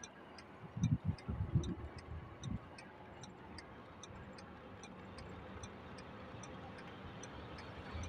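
A car's indicator relay ticking evenly, about three ticks a second, over the low hum of the car. A few low thumps come in the first few seconds.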